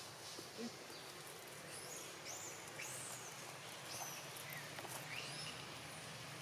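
Faint high chirps of small birds: a string of short calls that arch up and fall in pitch, over a steady low hum.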